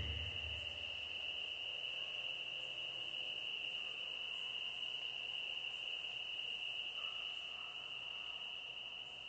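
Faint, steady, high-pitched insect-like buzz, like night crickets, that eases off a little near the end.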